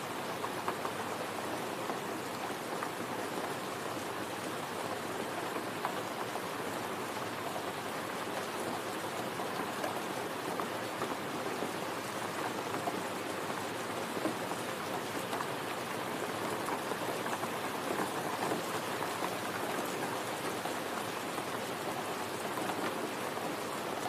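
Steady rain falling, a dense, even patter of countless drops.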